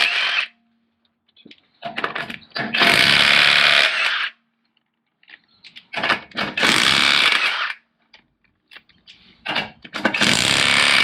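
Ozito 18V brushless 1/2-inch impact wrench hammering wheel lug nuts loose with a 19 mm deep impact socket. It runs in loud bursts of about two seconds, one nut after another: three full bursts after the tail of an earlier one. Each burst is led by a few short trigger blips.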